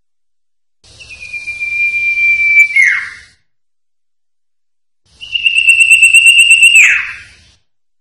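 Common iora (cipoh) singing two long drawn-out whistles, each held on one pitch for about two seconds and ending in a quick downward slur. The second whistle, about two seconds after the first, is slightly higher and pulses.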